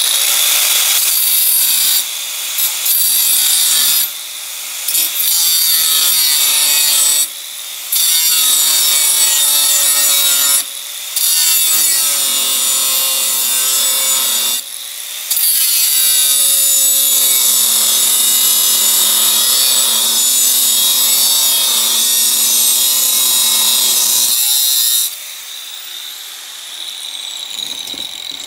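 Angle grinder cutting through a steel circular saw blade: the disc runs loud and steady in the steel over a constant high motor whine, and eases off briefly about five times. About three seconds before the end it comes out of the cut and runs quieter.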